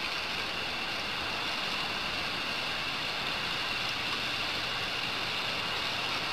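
A thin stream of water falling and splattering onto grass, a steady hiss.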